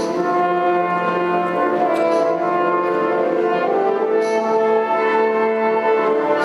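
Orchestral background music with long held chords.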